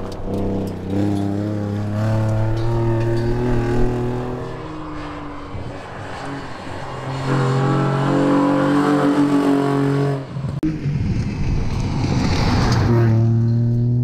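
Jaguar S-Type X200 rally car's engine revving hard at speed, the note climbing and dropping with gear changes, fading away and then coming back. About ten seconds in the sound cuts abruptly to another pass of the car.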